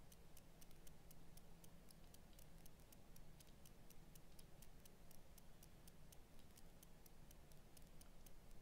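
Near silence: faint room tone with a low steady hum and a fast, even, faint ticking, about four or five ticks a second.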